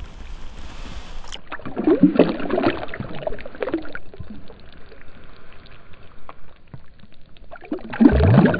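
Water splashing and sloshing at the boat's side as a released bass kicks free of the hand. One round of splashing comes about two seconds in, and a louder one comes near the end.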